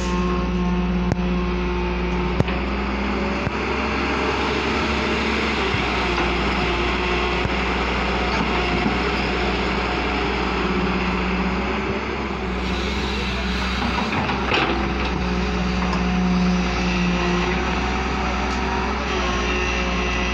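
JCB crawler excavator's diesel engine running steadily at working speed while the machine digs, swings and dumps soil.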